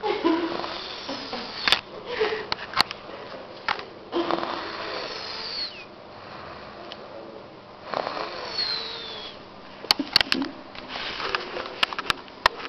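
A woman snoring in her sleep, a buzzing, fluttering snore on each breath, which recurs about every four seconds. Sharp clicks cut in between the breaths.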